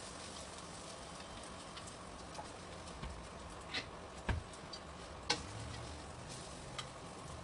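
Scrambled egg frying in a non-stick wok with a faint steady sizzle, and several sharp knocks and scrapes of a spatula against the pan as the egg is turned and pushed, mostly in the second half.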